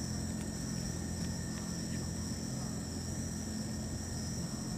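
Steady background hum: a low, even drone with a constant high-pitched whine above it and a few faint ticks.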